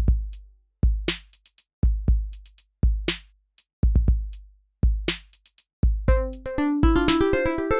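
Electronic ringtone music at 120 beats per minute, mostly a bare drum-machine beat: a deep bass drum about once a second, a snare-like hit every two seconds, and quick hi-hat ticks. About six seconds in, a synth melody and a busier rhythm come in.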